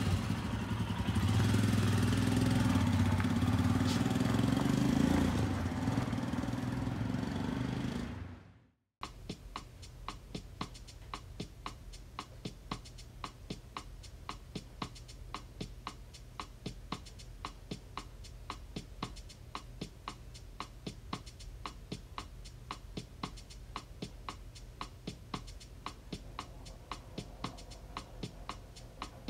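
Royal Enfield Himalayan single-cylinder motorcycle engine running under way for about eight seconds, then cutting off suddenly. After a short gap there is a quieter steady low hum with a sharp click about twice a second.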